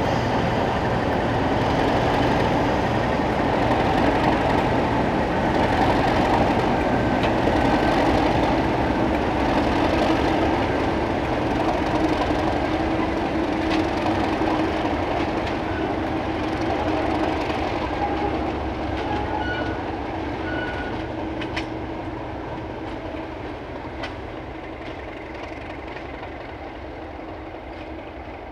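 Class 37 diesel-electric locomotive with its English Electric V12 engine running under power as it moves off light engine. The sound steadily fades over the second half as the locomotive draws away, with a few sharp clicks from the wheels.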